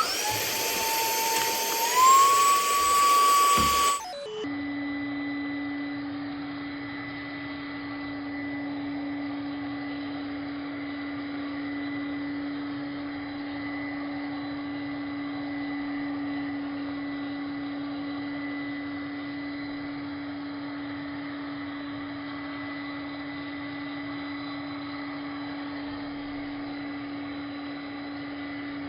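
Handheld cordless vacuum motor running with a whine, its pitch stepping up about two seconds in as it switches to a higher power setting. It cuts off suddenly about four seconds in, and a steady low hum with a faint hiss follows.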